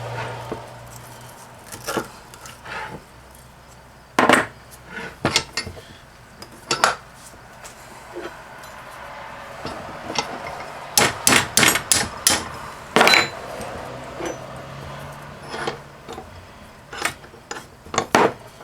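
Sharp, irregular knocks and clinks of hand tools on a Flojet water pump motor's cut armature as its copper windings are knocked and pried out. A quick run of about six strikes comes around the middle, then one loud strike.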